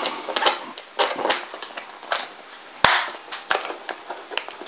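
Clicks and knocks of antenna parts being handled and fitted, as whip antennas go onto an antenna amplifier bracket. The knocks come at uneven intervals, with one sharper knock a little under three seconds in.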